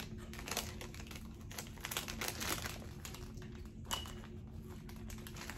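Foil snack-chip bags crinkling and rustling as they are picked up and handled, in irregular crackles.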